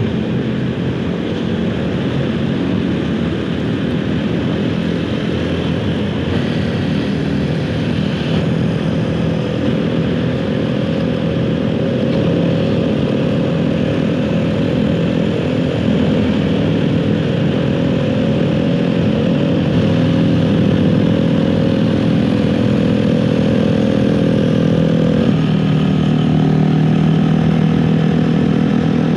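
Motorcycle engine running steadily while riding, picked up close by the rider's helmet mic together with the road and wind noise, with other motorcycles nearby. Its pitch steps up a little near the end.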